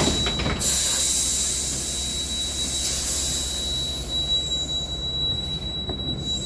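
City bus's compressed-air system letting out a long hiss of air, starting about half a second in and fading over the next few seconds, over the low hum of the idling engine and a steady high whine.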